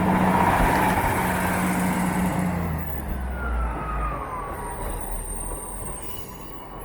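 Diesel passenger train running past and away: engine and wheel noise loud at first and fading, with the engine's low hum stopping partway through and a falling whine near the middle.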